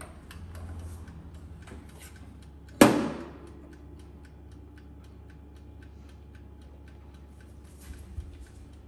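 Mechanical timer on a small electric oven ticking fast and evenly as it counts down a 15-minute bake. There is one sharp knock about three seconds in.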